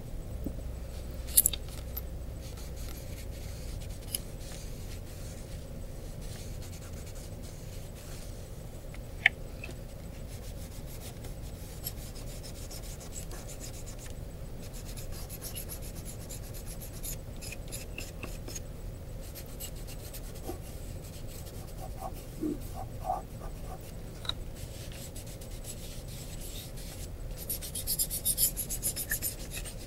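Charcoal scratching and rubbing on construction paper in many quick strokes, denser and louder near the end. Two sharp clicks early on.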